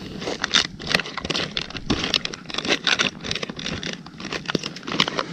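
Close, irregular crinkling, crackling and scraping of camp cooking gear and food packaging being handled.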